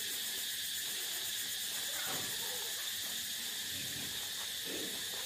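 Steady high-pitched chorus of insects, an even hiss with no break.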